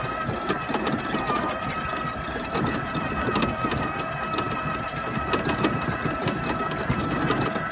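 EGO Z6 electric zero-turn mower driving with its blades off: a steady high whine, with rattling and clicking over a rough low rumble.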